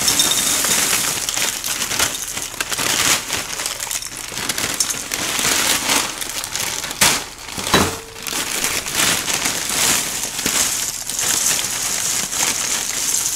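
Large plastic bag of Special K cereal crinkling and rustling as its flakes are poured into glass bowls, the dry flakes rattling against the glass. There are a few sharper knocks about seven to eight seconds in.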